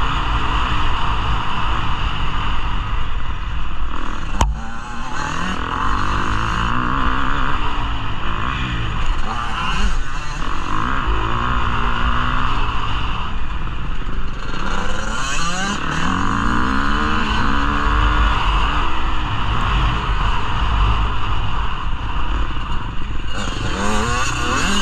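Dirt bike engine under way, its pitch rising and falling again and again as the throttle is opened and shut, over a constant low rumble of wind on the bike-mounted microphone. A single sharp click sounds about four seconds in.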